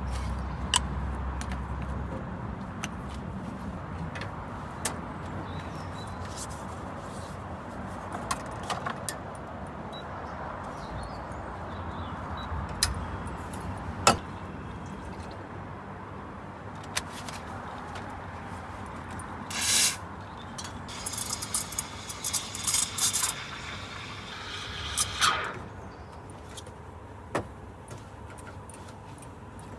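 Espresso machine at work while a milk coffee is made: a steady hiss with scattered clinks and knocks of cup and metal tools, then several short, loud hisses between about two-thirds and five-sixths of the way through, like a steam wand being opened and purged.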